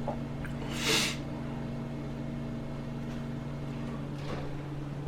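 Eating fried chicken fingers close to a shirt-clipped microphone: a short crunchy bite about a second in and a softer one near the end, over a steady low hum that partly drops out about four seconds in.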